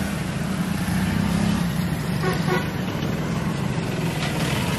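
Steady road traffic noise: vehicle engines running with a low hum, over a general street din.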